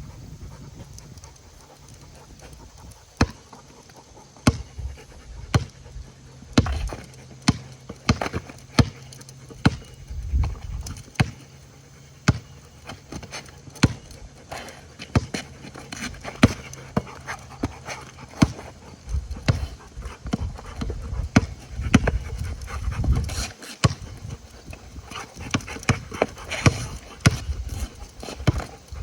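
Dogs playing: panting, with many sharp, irregular taps and knocks and low rumbling scuffles.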